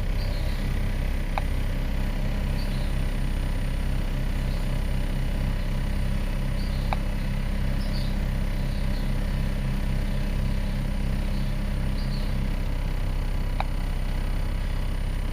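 Ford Mustang engine running at idle with its fuel rail pressure sensor unplugged. The idle is steady; a low tone within it stops about twelve seconds in.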